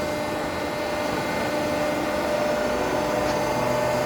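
Tube bending and end-forming machine running with a steady mechanical hum, with a faint click about three seconds in.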